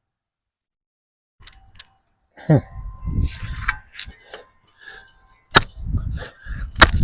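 Metal hand tool working in soil and roots around a fence post: scattered metallic clinks and knocks, with a scraping sound that drops in pitch about two and a half seconds in and heavier thuds near the end.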